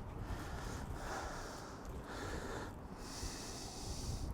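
A man breathing and sniffing through his nose, a few short hissing breaths.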